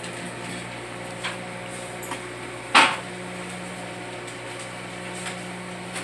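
Hamilton Beach microwave oven running with a steady low hum. A sharp knock a little under three seconds in is the loudest sound, and there are a few fainter clicks.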